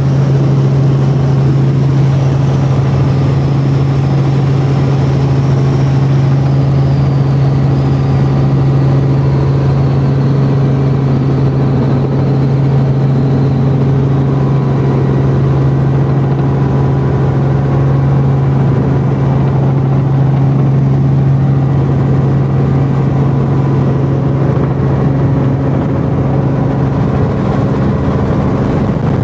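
Cabin noise of a Robinson R44 helicopter in flight: the engine and rotor make a loud, steady low drone. A faint high whine slowly falls in pitch over the first half.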